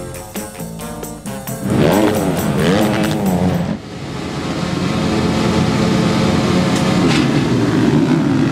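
Music ends in the first second and a half. Then a pack of motocross bikes at the starting gate rev their engines, the pitch swinging up and down. The massed engines build into a steady, rising drone as the field launches off the gate near the end.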